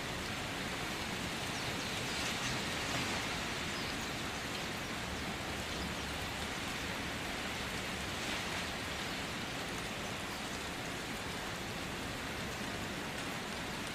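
Steady sizzling of food frying in hot oil in a pan, swelling a little about two seconds in and again near the middle.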